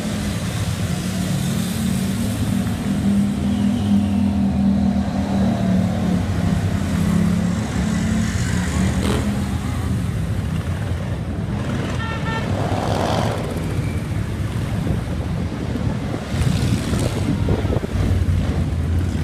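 A stream of motorcycles riding past slowly in a parade, sport bikes and cruisers together, their engines making a steady low drone that swells and fades as each bike goes by. There is a short high-pitched sound about twelve seconds in.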